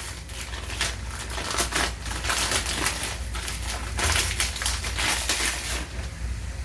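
Clear plastic wrapping crinkling and crackling in quick, irregular crackles as it is handled and pulled at around a bottle, stopping near the end.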